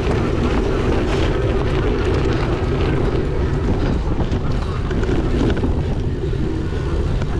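Strong gusty wind buffeting the microphone, a steady deep rumble with scattered clicks and rattles over it.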